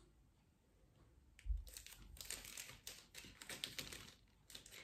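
Faint crinkling and rustling of a plastic disposal bag as used test-kit items are packed into it, in short irregular crackles after a soft low bump about a second and a half in.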